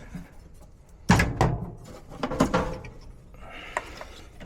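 Sheet-metal knocks and clatter from a gas furnace's blower compartment as parts are handled during removal of the failed blower: a loud knock about a second in, another a little over a second later, then lighter rattling.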